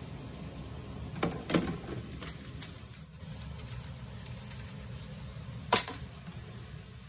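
Washing up in a kitchen sink: a sponge scrubbing a plastic slotted spatula, with a few light clicks and knocks of utensils against stainless steel dishes and one sharper knock near the end, over a steady low hum.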